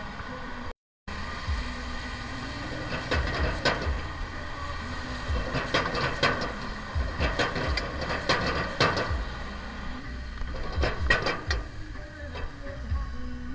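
Metal ladle scraping and clanking against a wok in irregular strokes as greens are stir-fried, over the steady rumble and hiss of a gas wok burner.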